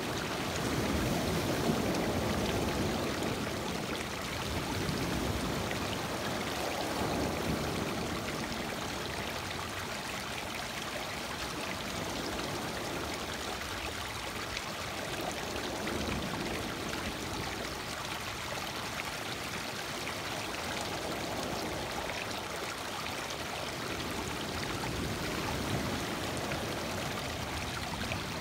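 Small lake waves washing in over a cobble beach and streaming back between the stones: a continuous rushing of water that swells louder every few seconds as a wave comes in.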